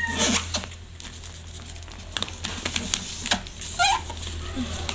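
Paper being folded and creased by hand on a tabletop: scattered soft taps and rustles over a steady low hum, with one short high-pitched call about four seconds in.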